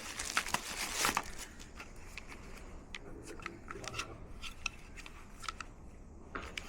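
Packaging being handled while unboxing: a burst of rustling and crinkling for about the first second, then scattered light clicks and taps.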